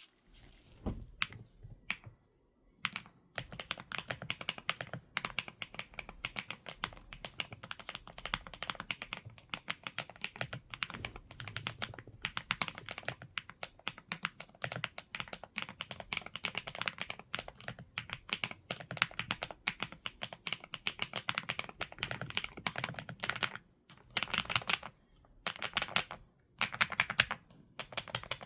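Typing on a Weikav NUT65 mechanical keyboard: a few single keystrokes at first, then a long run of fast, continuous clacking, broken by a few short pauses near the end.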